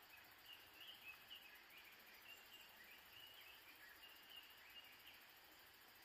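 A bird chirping faintly in a quick run of short high notes, stopping about five seconds in, over near-silent background hiss.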